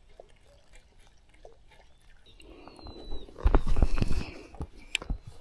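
Rustling and knocking of fabric rubbing and bumping against the camera's microphone, starting about two seconds in and loudest just past the middle.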